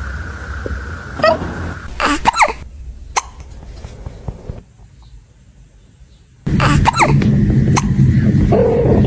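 Kittens hiccuping: a series of short, sharp hics roughly a second apart. After a short quiet gap a steady low rumble comes in beneath them.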